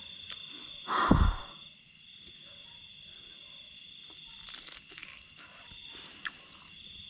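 Night insects, crickets among them, chirring steadily in a high thin tone, with a short breathy puff about a second in and a few faint clicks.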